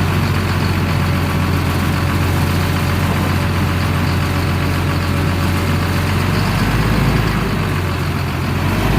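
Heavy diesel machine engine running steadily under light load while it pushes slowly against a bent trailer part. Its lowest rumble shifts about six and a half seconds in.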